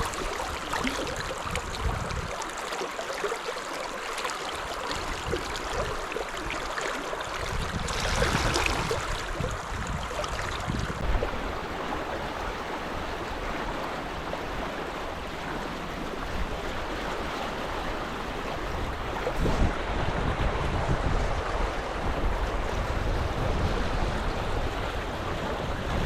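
River water rushing steadily, with wind rumbling on the microphone from about a third of the way in.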